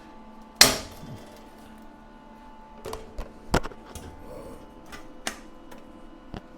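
A short tack weld on steel ribs and floor sheet: one brief, loud burst of welding noise about half a second in, followed by several light clicks and metal knocks as the steel parts are shifted.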